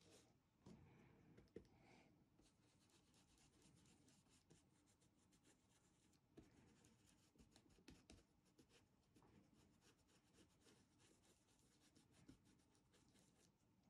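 Faint, rapid scratchy strokes of a flat brush working craft paint through a stencil onto a fabric apron. In the first couple of seconds there is a brief rustle and tap as the stencil is pressed down.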